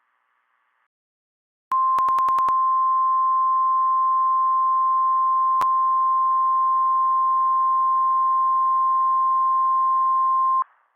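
NOAA Weather Radio 1050 Hz warning alarm tone: a single steady beep that starts about two seconds in, holds for about nine seconds and cuts off. It is the attention signal that announces a warning message is about to be read. A few clicks sound over it near its start and once midway.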